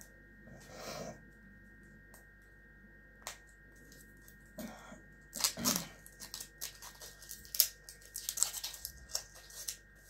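Foil capsule on the neck of a sparkling wine bottle being picked at and torn off by hand, crinkling and crackling in a run of small rustles and clicks that thickens in the second half.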